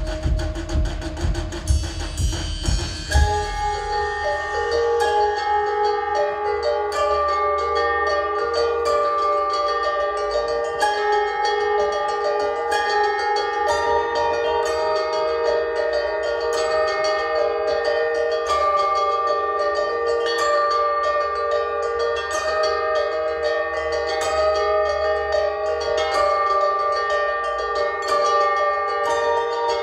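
Percussion music: drumming for about the first three seconds, then a steady, repeating pattern of ringing, bell-like pitched percussion tones.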